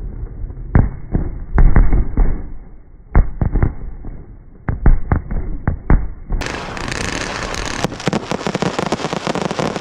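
Fireworks going off: a string of sharp bangs with deep booms, then, about six seconds in, a dense fast crackling that keeps going.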